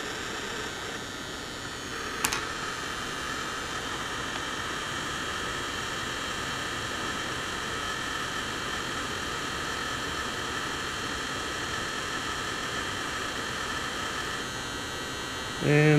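Hot-air heat gun blowing steadily, a constant hiss, heating a circuit board to reflow the solder under a small surface-mount chip; a single click about two seconds in.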